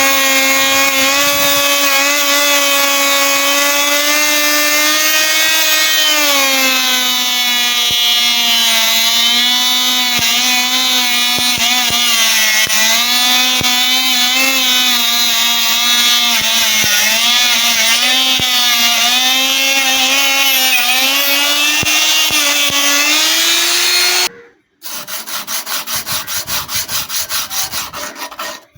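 Electric grinder, likely an angle grinder, running with a steady whine whose pitch sags and recovers as the steel knife blade is pressed against it. Near the end it cuts off suddenly and a fast, rhythmic scraping follows.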